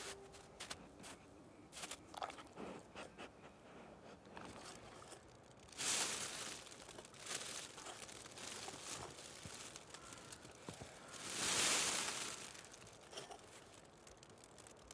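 Foil emergency blanket crinkling and crackling as someone shifts underneath it. The crackling swells louder twice, briefly about six seconds in and for longer around twelve seconds.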